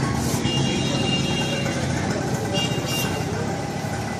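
Busy street traffic noise: motor vehicle engines running in a steady low rumble, with two short high-pitched tones about two seconds apart.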